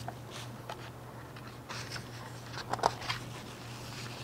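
Paper rustling and a few light clicks as a picture book's pages are handled and turned, over a low steady hum.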